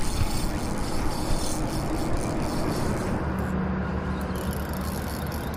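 Shimano Stella spinning reel being cranked steadily as a hooked fish is reeled in, with a light clicking rattle over a steady hiss.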